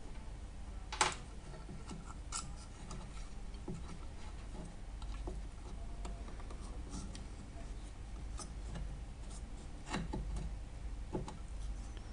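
Small black plastic parts of a Saeco Odea espresso machine's drip tray support being handled and fitted together with a metal pin and a small screwdriver: scattered clicks and light scraping, the sharpest clicks about a second in and near ten seconds.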